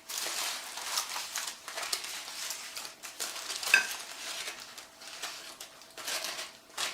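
Grilled ravioli and vegetables being poured and scraped out of a foil packet onto a plate: an uneven run of soft scraping, rustling and small clicks, with one sharp ringing clink a little under four seconds in.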